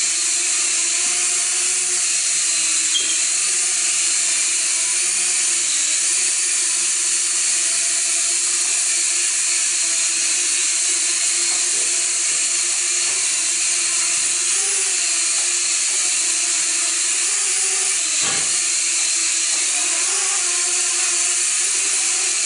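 Eachine H8C mini quadcopter's motors and propellers buzzing steadily as it hovers and flies, the pitch wavering a little as the throttle changes. A single brief click sounds about 18 seconds in.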